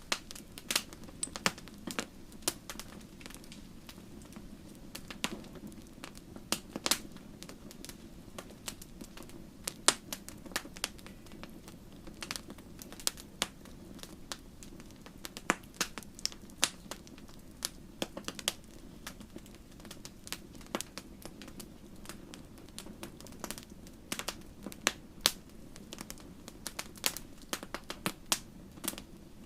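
Wood fire burning in a fireplace: irregular crackles and sharp pops from the burning logs over a steady low rush of the flames.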